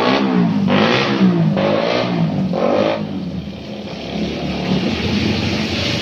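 Small motorcycles riding past on a rain-soaked road, their engine notes wavering up and down over tyre hiss on the wet asphalt. They fade about three seconds in, leaving the steady hiss of rain.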